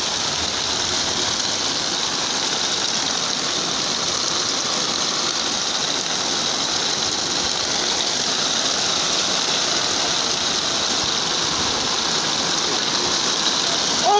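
Rain falling steadily: an even hiss that does not change.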